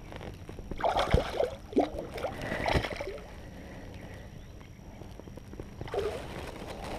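Water splashing and sloshing beside a float tube as a caught bass is released. The busiest splashing is about a second in, with sharp slaps near one and near three seconds, and a shorter splash around six seconds.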